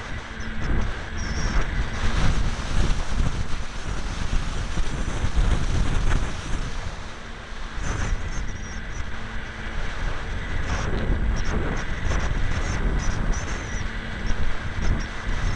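Wind rushing and buffeting over the onboard camera's microphone on a ParkZone T-28 Trojan electric foam RC plane in flight, rising and falling with the gusts. Underneath runs the steady hum of the plane's electric motor and propeller.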